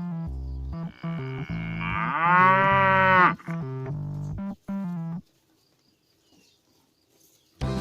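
A cow mooing once, a single long call that rises and falls in pitch, over light keyboard music; the music cuts off about five seconds in.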